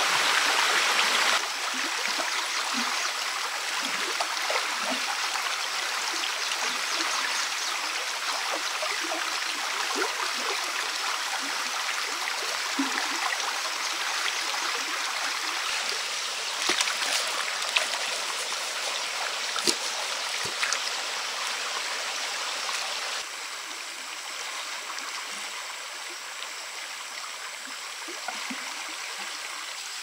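Shallow rocky stream running, a steady rush of flowing water that drops to a softer level about 23 seconds in. A few short sharp clicks sound over it between about 16 and 21 seconds in.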